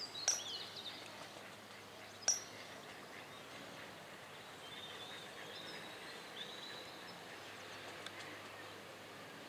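Small birds calling over a steady outdoor hiss: two sharp high chip notes about two seconds apart near the start, then faint high warbling song.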